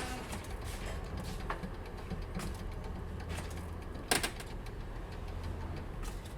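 Factory machinery ambience: a steady low rumble with scattered small clicks and one louder clank about four seconds in.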